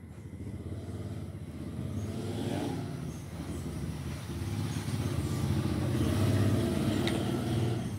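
A motor vehicle's engine running close by, growing steadily louder over several seconds and easing slightly near the end.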